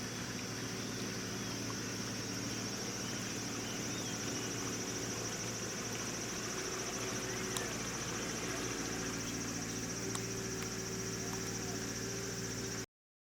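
Steady outdoor ambience: a constant high insect buzz with faint bird chirps over a low steady hum, with two short clicks, cutting off suddenly near the end.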